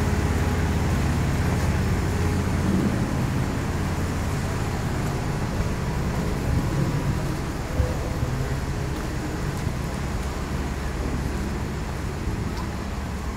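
Steady street traffic rumble with a low engine hum, slowly fading.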